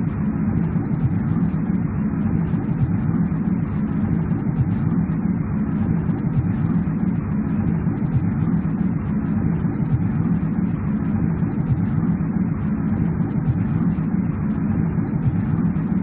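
Steady low rumbling noise with no separate events: a looped snowy-forest ambience track.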